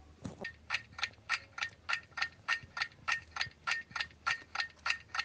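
Clock ticking sound effect, an even run of sharp ticks about three a second, used as a countdown to mark time running out for an answer.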